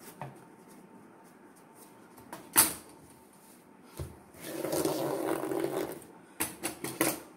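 Hands handling a cloth collar and scissors on a table: a sharp click, a knock, then a couple of seconds of cloth being rubbed and smoothed flat, and a few quick taps near the end.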